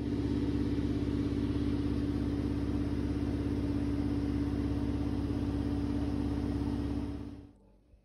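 An engine running steadily at a constant speed with a low hum, cutting off suddenly about seven seconds in.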